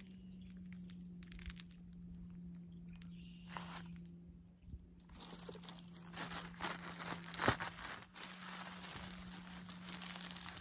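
Crinkling and rustling as dry bare-root asparagus crowns and their packaging are handled, with scattered small crackles, busiest in the second half. A low steady hum runs underneath.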